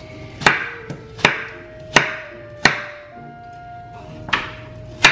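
Kitchen knife cutting through watermelon and knocking on a wooden cutting board, about six sharp strokes roughly one every 0.7 seconds with a pause midway, over background music.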